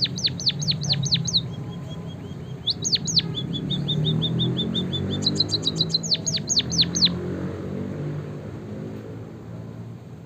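A small finch singing: bursts of quick, sharp down-slurred chirps, about six a second, with a softer run of short high notes between them, over a low steady hum. The song stops about seven seconds in and the sound fades.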